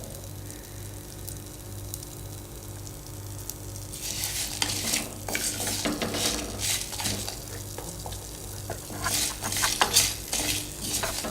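Whole spices (coriander seeds, peppercorns, dried chillies) frying in a little oil in a kadai, being stirred and roasted until golden. The first few seconds are quiet, then from about four seconds in come repeated scraping strokes of the spoon against the pan.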